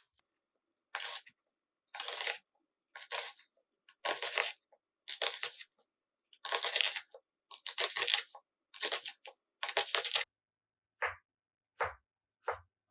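A knife slicing through onions on a cutting board. It makes a crisp, scraping stroke about once a second, about nine in all. Near the end come three shorter, sharper cuts, each with a light knock of the blade on the board.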